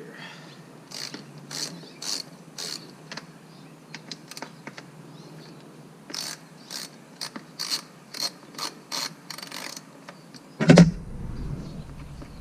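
Socket ratchet clicking in short runs, about two clicks a second, as an 8 mm bolt on the motorcycle's exhaust is loosened. A single louder thump comes near the end.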